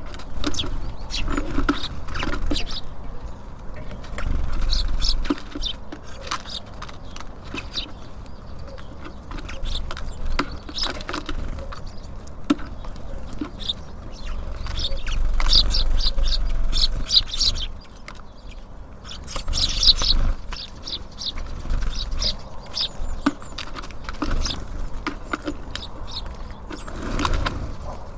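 Small songbirds at a feeder: frequent short, high chirps and tweets mixed with quick pecking and tapping sounds, over a low steady rumble.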